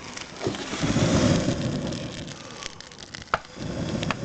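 Campfire burning, with scattered crackles and pops over a low rumbling noise that swells about a second in.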